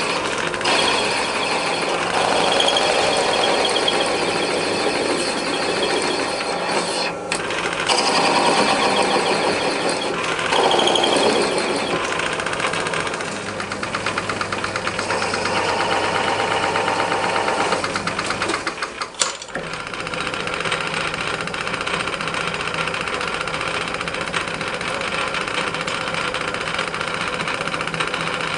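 Metal lathe turning a cast flywheel while the tool cuts a groove for the drive belt. The cutting noise swells and eases over the machine's steady running hum, with a brief dip about two-thirds of the way through.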